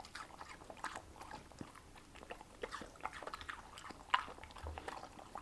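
A dog chewing and biting into juicy watermelon: a steady run of irregular wet, crunchy bites and smacks, with one sharper, louder bite a little past four seconds in.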